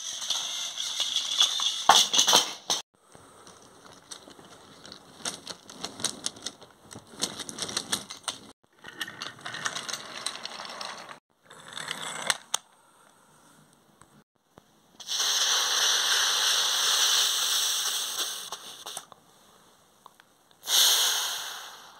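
Toy trains rolling and crashing on plastic and wooden toy track, in several short cuts: rattling wheels and many quick clicks and clacks. Later come a steady hissing noise lasting about four seconds and a shorter burst of hiss near the end.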